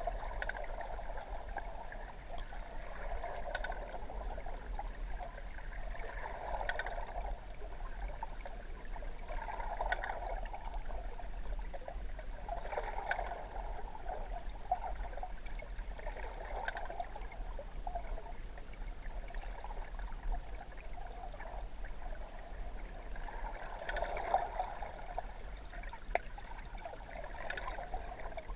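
Muffled gurgling and sloshing of water heard from underwater, swelling about every three seconds over a low steady rumble.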